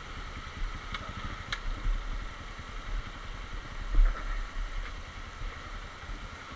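Honda CRF230's single-cylinder four-stroke engine idling steadily, with a loud thump about four seconds in.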